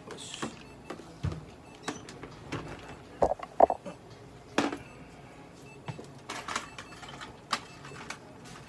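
Scattered clicks, knocks and rustling from towels, a plastic tray and small instruments being handled on and around a stainless steel exam table, with two short, louder knocks a little past three seconds.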